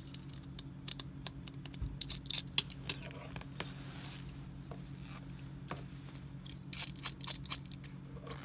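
Stitches being unpicked from a trouser seam: a run of sharp snips, scratches and small tugs of thread being cut and pulled free, loudest about two and a half seconds in and again around seven seconds. A steady low hum runs underneath.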